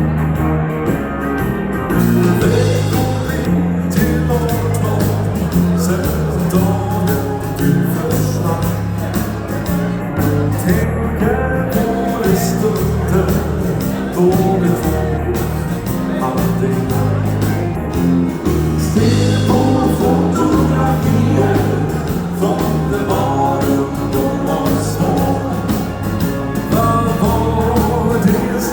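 Dance band playing an instrumental passage of a slow song, with a steady bass line stepping between notes about once a second under the rest of the band.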